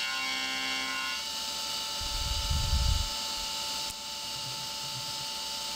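CNC mill cutting a steel gasblock with a carbide end mill under flood coolant, a steady machining whine made of several tones. A low rumble rises about two seconds in and stops a second later, and there is a short click near the end.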